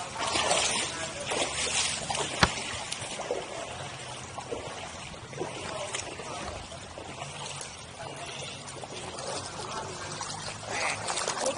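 Feet and legs wading through shin-deep floodwater, the water sloshing and swirling with each stride, with one sharp click about two and a half seconds in.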